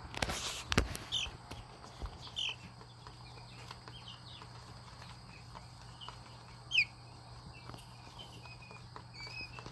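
Chicks peeping with short, high, scattered calls, one louder falling peep about seven seconds in and quicker peeps near the end. About half a second in there is a brief rustle and knock, as of birds or hands moving in the brooder.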